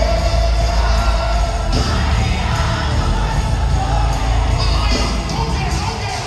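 Live gospel worship music: singers over a band with a heavy bass, with crowd voices mixed in.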